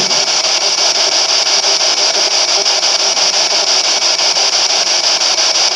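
Ghost-hunting spirit box, a radio scanner sweeping through stations: a loud, steady hiss of static chopped by fast, regular clicks as it jumps from channel to channel.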